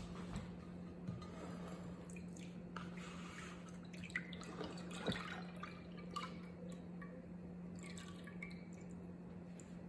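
Thin stream of liquid cake batter pouring from a plastic measuring jug into a glass baking dish, trickling and dripping softly, with a few faint ticks. A steady low hum runs underneath.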